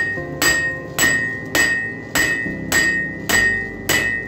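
Hammer blows on a hot Damascus steel knife blank lying on an anvil: about eight strikes, just under two a second, each ringing briefly.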